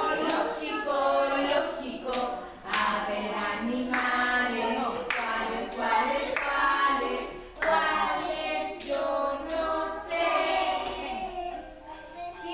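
A group of young children singing a song together in unison, with hand claps about once a second.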